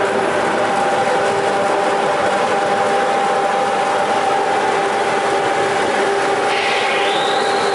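Butfering long-belt sander running steadily, its motor and abrasive belt giving a constant hum and hiss. About two-thirds of the way through, a higher whine joins in briefly.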